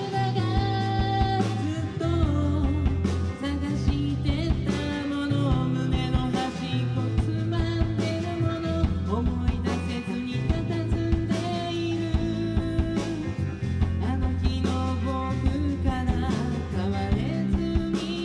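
Live rock band playing: electric guitar and drum kit, with regular drum and cymbal hits and sustained low notes under a sung vocal.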